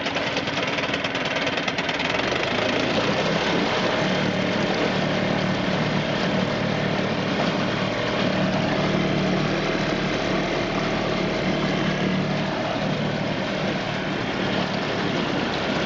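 Mercury 5 hp single-cylinder two-stroke outboard running steadily in forward gear, its propeller churning the water in a test barrel.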